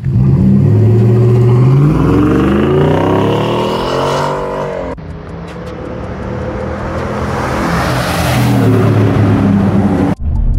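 2021 Nissan Titan's 5.6-litre V8 through a true-dual exhaust with Flowmaster Super 10 mufflers and an X-pipe, its engine note climbing steadily in pitch as it pulls up through the revs for about five seconds, then breaking off abruptly. The truck then approaches and passes at speed, exhaust and tyre noise swelling to a peak and fading, before another abrupt break near the end.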